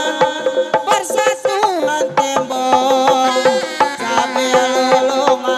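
Sundanese benjang/reak procession music: drums beating a steady rhythm under a held, wavering melody line.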